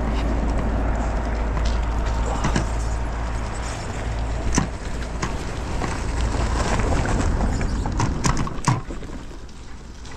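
Wind buffeting the microphone over the running noise of a bicycle riding along a rough, icy road, with scattered sharp knocks and rattles as it jolts over ruts; it gets quieter near the end.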